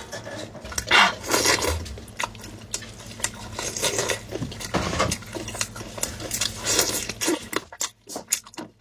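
Gloved hands tearing apart a whole cooked chicken in chili-oil sauce: wet squelching and ripping of meat and skin, with small clicks and clinks against the dish. It grows quieter near the end.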